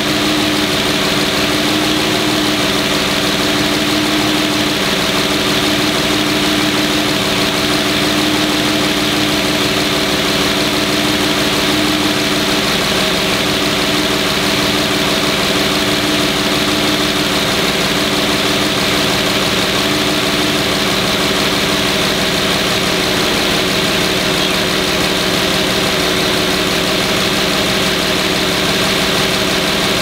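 Infiniti EX35's low-mileage 3.5-litre VQ V6 (about 17,000 miles) idling steadily under the open hood, its hum shifting slightly in tone partway through.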